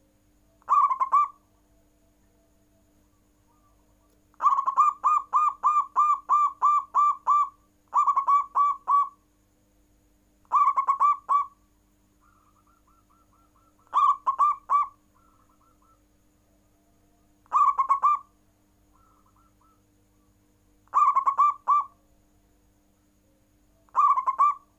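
Zebra dove (perkutut) cooing: bursts of quick staccato coos come about every three and a half seconds, with one longer run of about nine notes about four seconds in. A fainter second dove answers with short runs of similar notes between the bursts.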